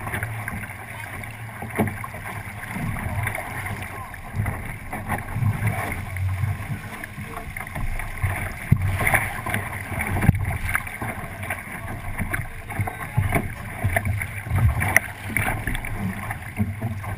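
Water rushing and splashing along the hull of a 29er skiff sailing under way, with irregular knocks and slaps of the hull through the waves.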